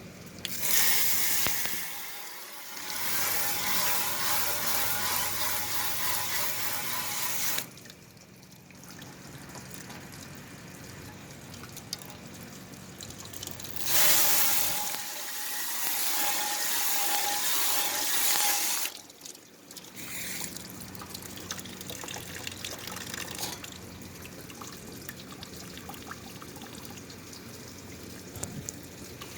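Garden hose spraying water into an air conditioner's outdoor condenser unit, in two long bursts of about seven and five seconds.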